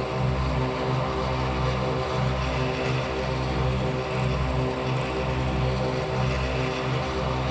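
Dark ambient drone: a steady, low, layered synthesized hum with a pulsing low end and a faint hiss above, much like a propeller plane's engine drone.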